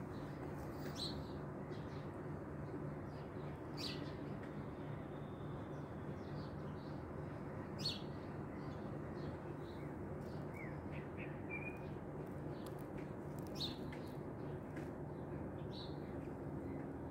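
Small birds giving scattered short chirps, a few spread through, the loudest about eight seconds in, over a steady low background hum.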